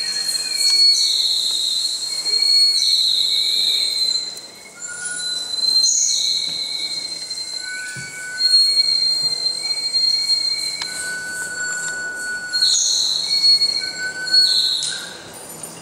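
Long, shrill whistle tones at several high pitches, overlapping and changing every second or two, some bending slightly as they start.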